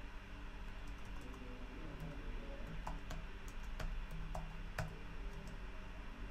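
Computer keyboard being typed: a series of irregular, separate keystroke clicks, over a steady low background hum.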